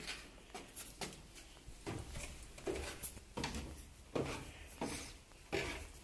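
Footsteps indoors, roughly one step every 0.7 seconds, each a short knock with some scuffing, over a faint low hum.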